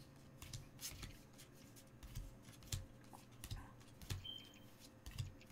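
Magic: The Gathering cards being handled and sorted by hand on a playmat: faint, irregular clicks, taps and slides of cards, with a few soft low thumps.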